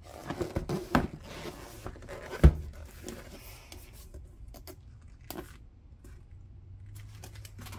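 Cardboard box of a cordless impact wrench handled on a table: rubbing and scraping for about the first second, one sharp knock about two and a half seconds in as the box is set down, then a few light taps.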